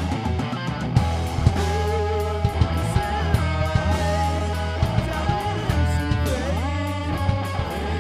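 Rock band playing live: distorted electric guitar over electric bass and drums with a steady beat, with notes sliding in pitch twice, about three and seven seconds in.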